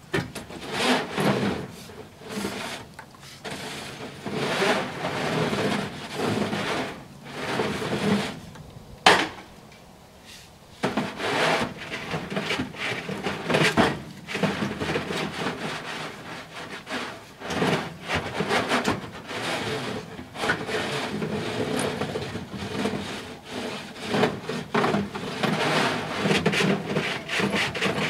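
A tool repeatedly scraping across the wooden floor of a chicken coop as it is scraped clean, in irregular strokes. There is a sharp knock about nine seconds in, then a few seconds of quieter work before the scraping picks up again.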